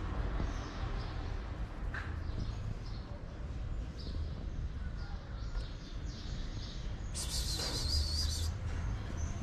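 Small birds chirping in short, repeated high calls over a low steady street rumble, with a louder high-pitched sound lasting about a second near the end.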